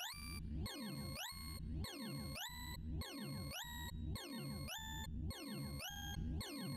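Sorting-visualizer sonification of pancake sort: rapid synthesized beeps whose pitch follows the height of each bar being compared. They come in scanning sweeps of stepped tones, about one sweep a second with a brief gap between sweeps.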